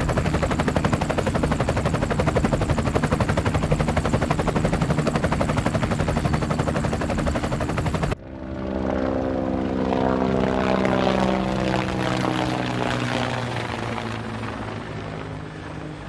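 Helicopter rotor chop with its engine, loud and steady. About eight seconds in it cuts off abruptly, and a passing engine takes over, falling in pitch as it goes by and fading away.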